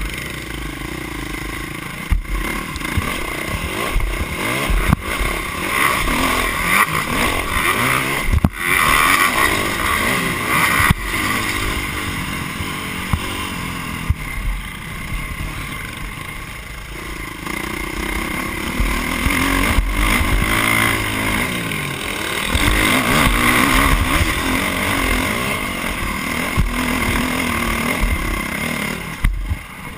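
Dirt bike engine heard from on board while racing a motocross track, rising and falling in pitch as the throttle opens and closes. A few sharp knocks come from the bike hitting bumps and landing.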